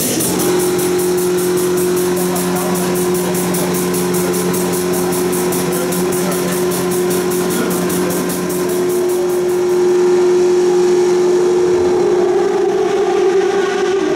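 A steady machine hum that starts abruptly about half a second in, held on two even tones, with a fast, even ticking over it. The ticking stops about ten seconds in, where the hum grows louder.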